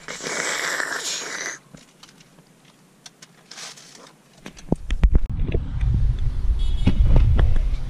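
A straw slurping the last of a drink from a plastic cup for about a second and a half. About halfway in, wind starts buffeting the microphone in a loud low rumble, with sharp handling knocks.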